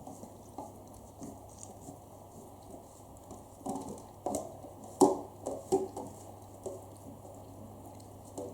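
An Akita dog licking and chewing, with wet smacking, irregular clicks and a cluster of louder sharp clicks about halfway through.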